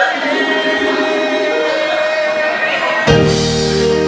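Singing through a handheld microphone and PA over backing music. About three seconds in, loud sustained instrumental chords with heavy bass come in suddenly.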